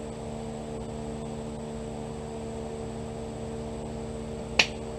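Steady machine hum with a few fixed tones, like a fan or air-conditioning unit running, with one short sharp click near the end.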